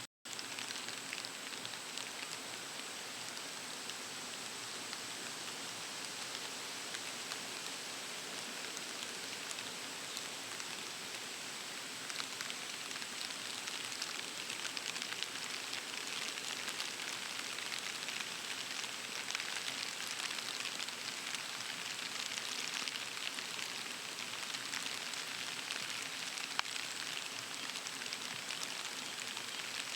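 Steady rain falling, an even hiss with many fine pattering drops, slightly heavier in the second half. A thin, steady high tone runs under it, and the sound drops out for a moment just after the start.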